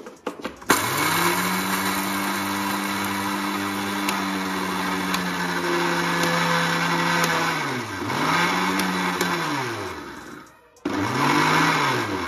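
Electric mixer grinder (mixie) grinding dried eggshells into powder. The motor starts after a few clicks, runs steadily for about seven seconds with the hiss and rattle of shells in the steel jar, then is switched off and on in two short pulses, its pitch falling and rising each time.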